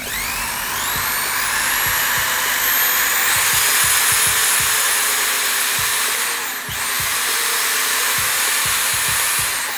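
Makita DF0300 corded drill-driver running free with no load. As the trigger is squeezed, the motor whine climbs in pitch through the soft start and variable-speed range, then holds at full speed. It eases off briefly about two-thirds of the way in, comes back up, and starts to wind down near the end.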